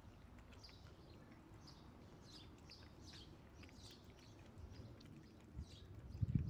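Small birds chirping repeatedly in quick short falling notes, with a couple of low dull thumps near the end.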